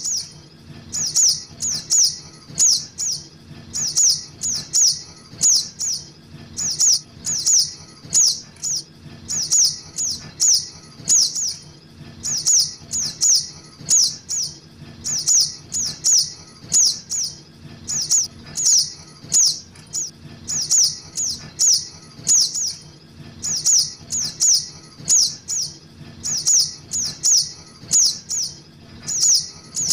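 Juvenile sogok ontong (ruby-cheeked sunbird) calling: a steady run of short, high, downward-slurred chirps in quick clusters of two or three, about every half second. These are chick calls played as a trapping lure.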